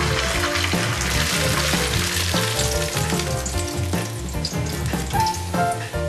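Sakura shrimp sizzling in hot oil as they are re-fried and poured off through a wire strainer. The sizzle thins out after about halfway.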